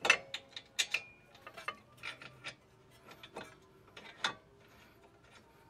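Irregular metal clicks and clinks from a front brake caliper bracket and its bolts being handled and started by hand, a dozen or so short sharp ticks with the loudest at the start and about four seconds in.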